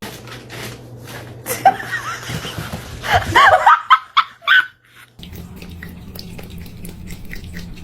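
A person laughing and snickering in short bursts through the first half, then a brief near-silent gap and a steady low hum.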